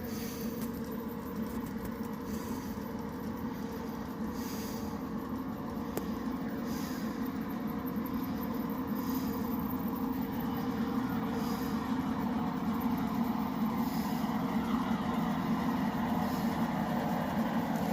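G-scale model freight train running on garden track: a steady motor hum and wheel noise that slowly grows louder as it comes closer. A faint high hiss recurs about every two seconds.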